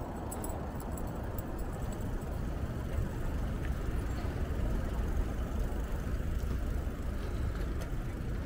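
Steady low rumble of wind on the microphone of a moving bicycle, mixed with city street traffic.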